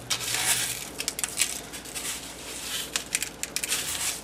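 Dry panko breadcrumbs mixed with grated Parmesan crunching and rustling as a chicken breast is pressed and turned in them to coat it, with many small crackles and clicks.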